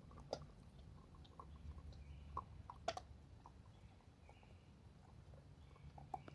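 Dog mouth sounds from a hound, quiet scattered wet smacks and clicks, with one sharper click about three seconds in.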